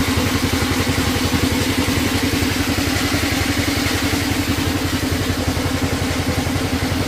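An engine idling steadily with a fast, even beat.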